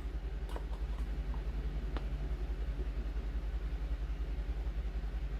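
A steady low machine hum with a fast, even pulse, with two faint clicks about half a second and two seconds in.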